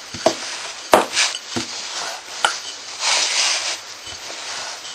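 Wooden rolling pin rolling out pastry dough on a floured wooden board: a soft rubbing, rolling sound with a few light knocks of the pin against the board.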